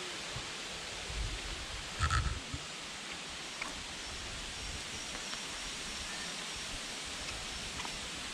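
Steady outdoor background hiss, with a few soft low knocks and a short sharper sound about two seconds in as a person sitting in thick mud shifts his body and the camera pole.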